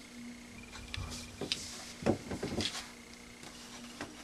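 Small items and packaging being handled by hand: a few light clicks and short rustles, the loudest about two seconds in.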